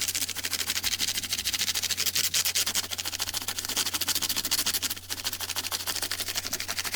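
Stiff-bristled brush scrubbing across a computer keyboard's keys and grooves in rapid back-and-forth strokes, with a brief pause about five seconds in. A steady low electrical hum runs underneath.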